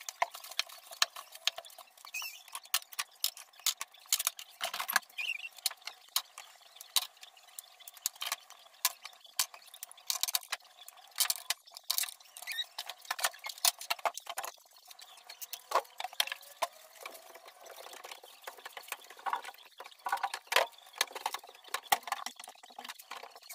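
Many small clicks, taps and rubbing sounds from glass perfume bottles and a glass shelf being picked up, wiped with a cloth and set back down by gloved hands.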